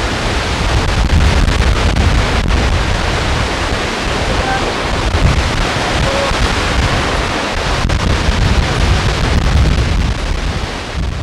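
Steady rushing of a large waterfall, with wind rumbling on the microphone.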